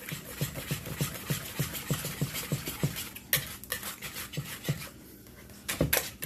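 Wire whisk beating a thick flour-and-water batter in a mixing bowl, about three strokes a second, the whisk scraping and tapping against the bowl as the lumps are worked out. The strokes go quieter a little after four seconds in, then a few louder knocks against the bowl come near the end.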